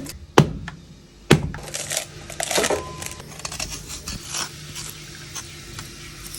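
Kitchen utensils and dishes knocking and clinking: two sharp knocks about half a second and a second and a half in, then lighter scattered clatter.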